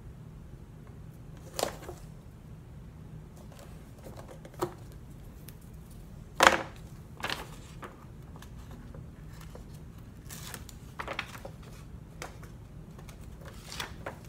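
Paper envelopes being handled and pressed down onto tape on a tabletop: scattered taps and paper rustles, the loudest about six and a half seconds in, over a low steady hum.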